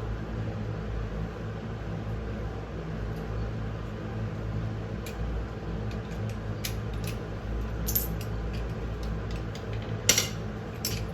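Scattered light metallic clicks and taps of a socket and torque wrench working the brake caliper mounting bolts, the loudest about ten seconds in, over a steady low hum.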